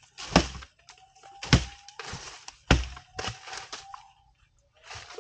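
Asian elephant feeding: repeated sharp cracks and heavy thuds of vegetation being broken, the loudest about one a second, with smaller snaps between. A thin whistling tone, rising slightly, comes twice in between.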